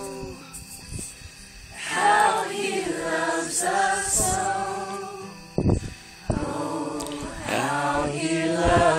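A small mixed group of young men's and women's voices singing a worship song a cappella, in two sustained phrases with a pause between them. A brief thump sounds in the pause, about halfway through.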